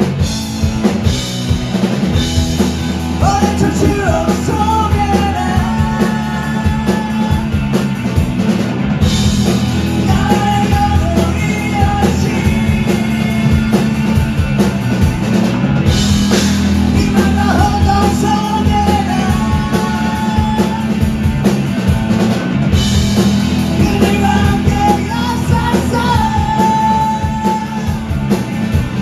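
Live rock band playing: drum kit, electric guitar and a lead singer, with sung phrases coming in and dropping out every few seconds over the steady band.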